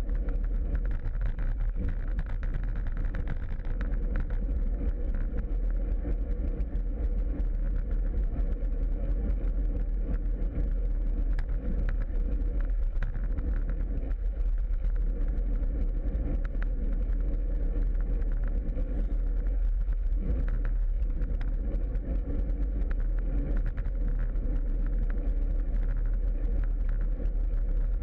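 Steady wind rush and road noise picked up by a camera mounted on a moving bicycle, heaviest in the low rumble.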